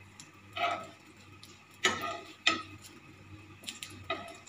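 Metal tongs clinking and tapping against a nonstick frying pan as buns are turned in butter: four sharp clinks, each with a short ring.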